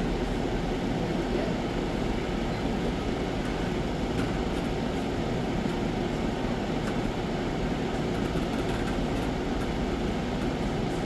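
Steady low rumble and hiss of background machinery, like large fans or air conditioning, with a few faint light ticks.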